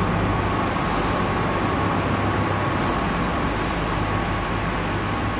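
Steady mechanical drone of machinery or ventilation, a low hum with a faint steady whine above it and a couple of soft hissing swells.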